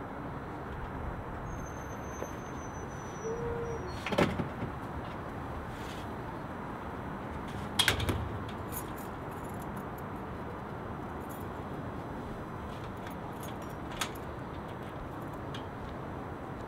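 Steady city street background noise, with two short knocks or clanks, one about four seconds in and a louder one about eight seconds in, and a small click near the end.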